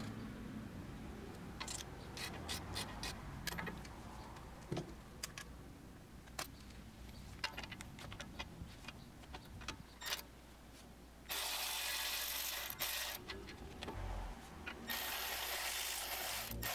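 Scattered clicks and metal clinks of hand tools working on a brake caliper bracket's bolts. From about eleven seconds in come two steady stretches of hissing noise, each about three seconds long.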